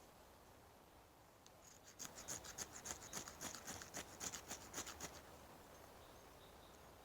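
Quick rhythmic scraping strokes, about six a second, for about three seconds beginning some two seconds in, over faint outdoor background.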